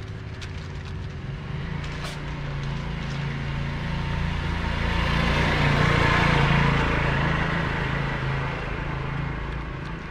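A motor vehicle passing by, its engine hum and road noise growing louder to a peak about six seconds in and then fading away.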